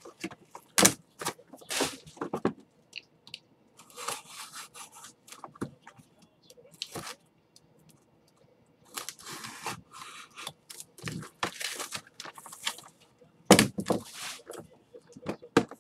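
Crinkling and tearing of plastic and foil wrappers, in irregular bursts of sharp crackles with quiet gaps, as trading-card packs are handled and ripped open. The loudest crackle comes near the end.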